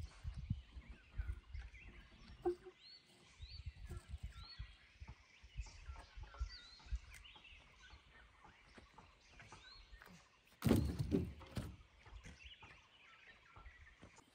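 Faint footsteps and low knocks on ash and charred wood as a man moves about a burned field and handles a charred branch. Small birds call again and again in the background. About eleven seconds in comes a louder burst of thumping and rustling.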